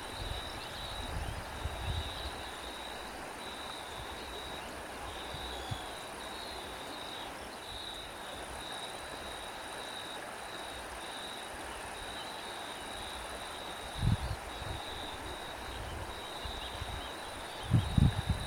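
Crickets chirping in steady, repeated high trills, with wind rumbling on the microphone in gusts at the start, about fourteen seconds in and near the end.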